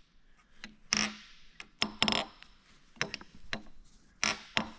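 Sharp clanks and knocks of the Bendix Tu-Flo 500 compressor's metal parts being handled and set down during disassembly, about seven hits at uneven intervals, each with a brief ring.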